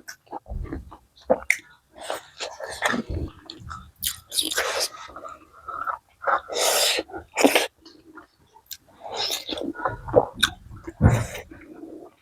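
Close-miked eating sounds: chewing chicken and corn rice, with a run of wet mouth clicks and several short, hissy breaths or slurps between bites.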